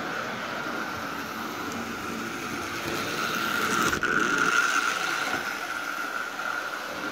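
Lionel No. 50 gang car's Pullmor electric motor and gears whining steadily as it runs around the track, with the rattle of its wheels on the rails, getting louder as it passes close about four seconds in. It is freshly lubricated and running smoothly.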